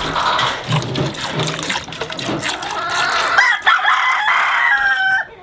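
Chickens clucking, with a rooster crowing in the second half, over the hiss of milk squirting into a steel pail as a cow is hand-milked.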